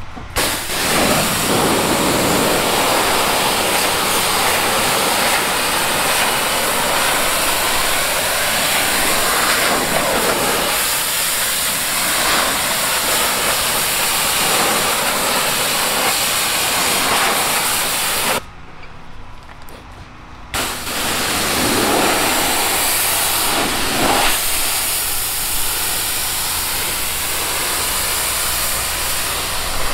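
Pressure washer spray from a long wand hissing steadily as the water jet strikes wooden deck boards. The spray cuts off for about two seconds past the middle, then starts again.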